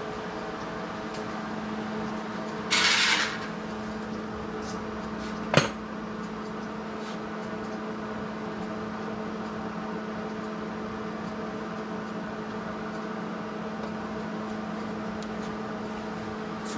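Workshop sounds over a steady machine hum: a short hiss lasting about half a second near three seconds in, then a single sharp metallic clank a couple of seconds later, the loudest sound.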